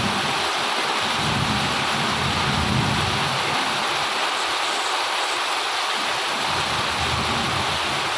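Heavy rain falling steadily in strong wind, with an uneven low rumble of gusts.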